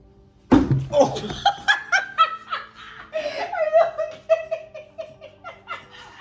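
Hearty laughter breaking out suddenly with a shouted "Oh!", going on in quick rhythmic bouts for several seconds.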